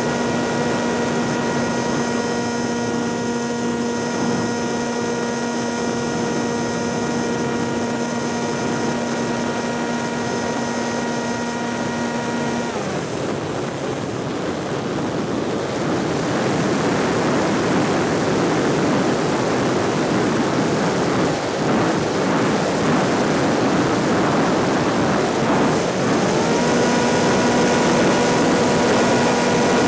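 Propeller motor of a small aircraft, heard onboard, running at a steady pitch. About thirteen seconds in it is throttled back, its pitch sliding down and fading, which leaves only the rush of air while the aircraft glides. Near the end it powers up again, its pitch rising back to the steady drone.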